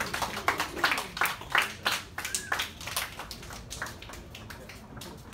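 A group of people clapping and cheering: scattered sharp claps, two or three a second, with a few shouts mixed in, dying down near the end.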